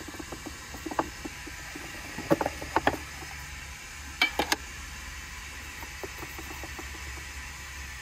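Steady hiss of a butane stove burner running under a kettle. Over it come sharp metallic clicks and clinks as a metal tin is opened and handled: a few small ones about a second in, a louder cluster a little after two seconds, the loudest pair about four seconds in, and light taps later as a scoop goes into the tin.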